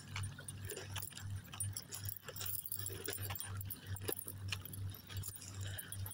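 Footsteps walking across dry beach sand: soft, even steps at about three a second, with faint clicks and rustles over them.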